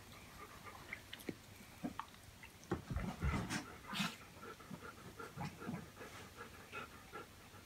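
A dog panting, with scattered soft bumps and rustles.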